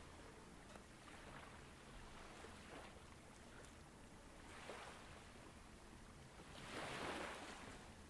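Faint ocean waves washing on a shore, with one swell building and breaking near the end.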